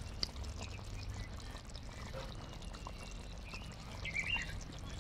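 Chicken curry sizzling softly in an iron kadai, over a low steady rumble. A bird chirps faintly about four seconds in.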